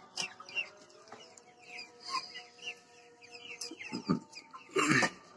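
A flock of young Vanaraja chickens clucking and peeping, with many short falling calls overlapping and two louder calls about four and five seconds in.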